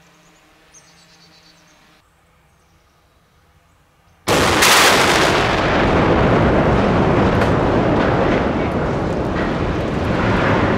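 Explosive demolition charges detonating on a steel girder bridge: a sudden, very loud blast about four seconds in, followed by several seconds of loud rumbling noise scattered with sharp cracks that is still going at the end.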